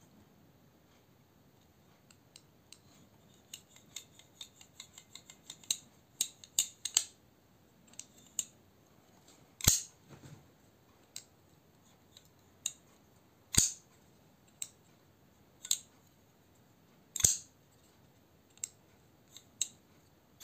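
Skif Shark II folding knife being worked open and shut by hand: a run of quick light clicks, then several sharp metallic snaps a couple of seconds apart as the blade swings out and shuts. A smooth action.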